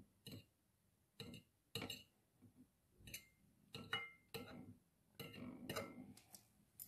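Metal fork clinking and scraping against a ceramic plate while cutting into breaded fried chicken: faint, irregular short clinks, about a dozen, some with a brief ring.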